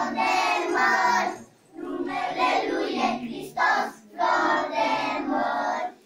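A group of young children singing a song together, in phrases broken by short pauses about every two seconds.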